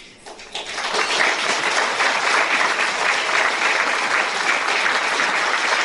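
Audience applause that starts about half a second in, builds within a second and then holds steady.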